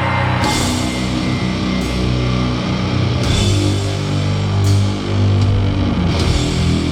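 Doom metal band playing live: slow, heavily distorted low guitar and bass notes held under drums, with a cymbal crash about every one and a half seconds.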